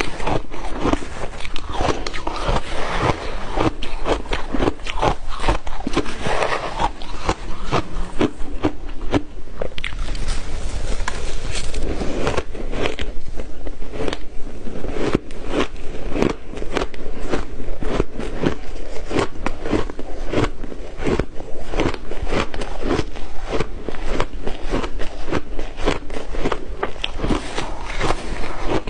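Ice being bitten and chewed close to the microphone: dense, irregular crunching and crackling throughout.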